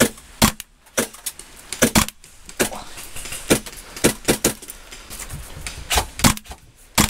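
Airsoft guns firing single shots, about fifteen sharp pops at irregular intervals, some in quick pairs or threes.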